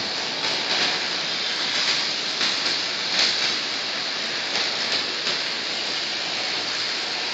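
Electric arc welding on a steel pipe: a steady, rain-like crackling sizzle from the arc with occasional brief louder pops.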